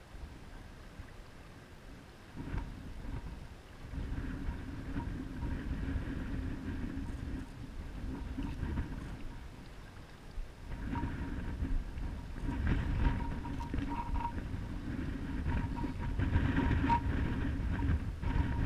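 Wind buffeting the camera microphone as a low, uneven rumble that rises and falls in gusts. It is quieter for the first couple of seconds and strongest in the second half, with wind-driven river chop lapping at the boat's hull.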